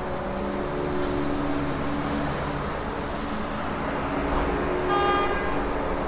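City street traffic noise with steady engine hum from passing vehicles, and a brief car horn toot about five seconds in.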